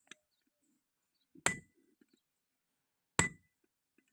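Blacksmith's hammer striking steel on an anvil twice, about a second and a half apart, each blow with a short metallic ring: hand-forging a round rod into an axe head.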